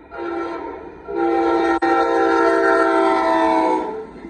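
Amtrak Texas Eagle locomotive's horn sounding a chord for a grade crossing: a short blast, then a long blast of nearly three seconds. This is the close of the crossing signal. Once the horn stops near the end, the train's running rumble is left.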